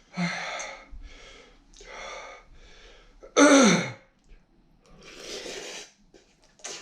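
A man breathing hard in forceful, hissing exhales through the burn of extremely spicy food, with one loud cry falling in pitch about three and a half seconds in.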